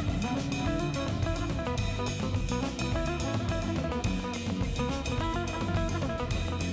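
Background music with guitar and a steady drum-kit beat.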